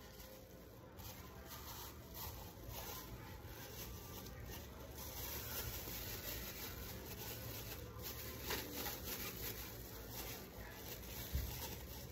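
Faint rustling and crinkling of thin plastic disposable gloves being pulled onto the hands, over a steady low room hum, with a soft bump near the end.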